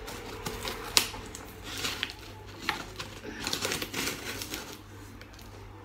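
Scissor blade slitting and scraping along the packing tape of a cardboard box, in irregular scratchy strokes with clicks, one sharp click about a second in.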